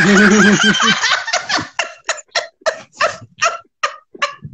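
Hearty male laughter over an online video call. It opens with about a second of long, wavering voiced laughing, then breaks into a run of short laughing bursts about three a second.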